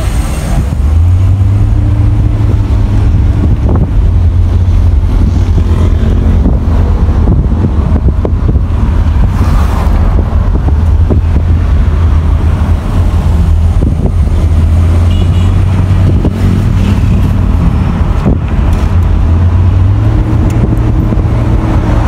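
Steady low rumble of a car's engine and road noise, heard from inside the cabin while riding in traffic.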